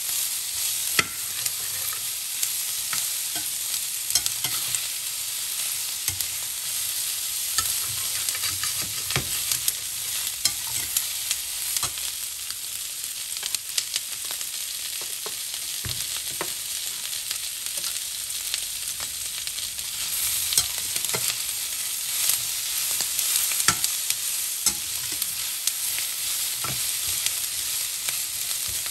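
Chicken pieces and diced bell peppers sizzling in a stainless steel skillet, with a steady hiss, while a metal slotted turner stirs them, scraping and clicking irregularly against the pan.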